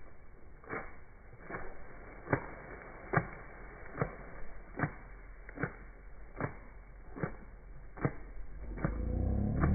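Slowed-down, muffled audio with a steady series of dull knocks, about one every 0.8 seconds. Music with guitar fades in near the end.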